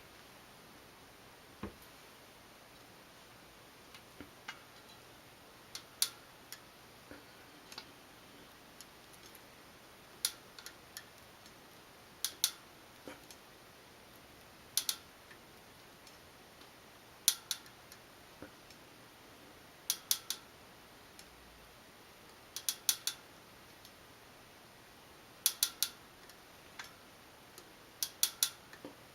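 Sharp metallic pinging snaps from a new Shimano Dura-Ace C24 rear wheel as its Ultegra cassette is loaded with a chain whip, coming every two to three seconds, often in quick pairs or clusters of three or four. It is a fault noise that follows the wheel and not the cassette, with the lock ring properly torqued; its cause is unknown.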